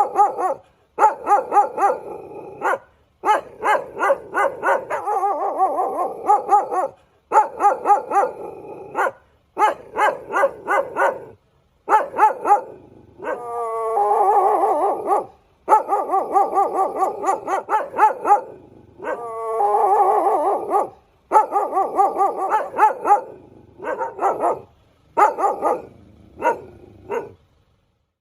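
Dog barking in rapid runs of short, high yaps, with a couple of longer cries that slide down in pitch. The runs are broken by abrupt silent gaps.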